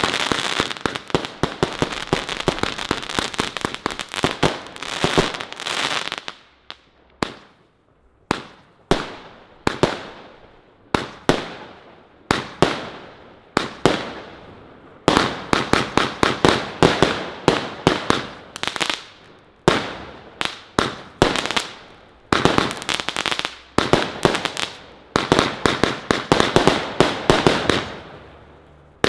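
Rubro Heavy Legend Color Rush fireworks cake firing its 18 mm shots, with crackling star bursts. It fires in dense rapid volleys, thins to single shots about once a second from about six to fifteen seconds in, then goes back to dense volleys.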